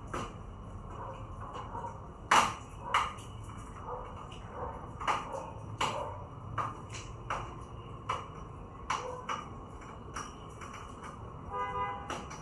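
Irregular light clicks and taps of handling on a workbench, about a dozen over the stretch, the sharpest about two seconds in, with a brief pitched buzz near the end.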